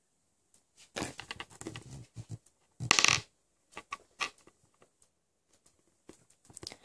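Handling noise of hands working a brown marker and a small lump of clay on a plastic desk mat: a cluster of short scrapes and taps, one louder rustle about three seconds in, then a few small clicks.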